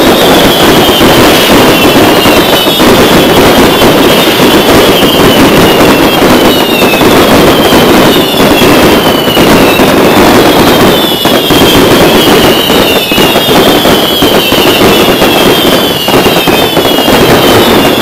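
Fireworks display at full barrage: a loud, continuous mass of bangs and crackling from many shells and ground effects going off at once, with a falling whistle repeating about once a second.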